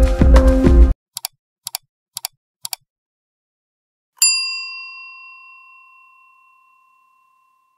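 Background music cuts off about a second in, followed by four short clicks about half a second apart. Then a single bell ding rings out and fades over a couple of seconds: a notification-bell sound effect timed to an animated bell icon.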